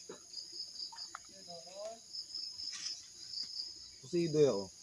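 Crickets chirring steadily in a constant high-pitched drone. A voice calls out briefly near the end, and is the loudest sound.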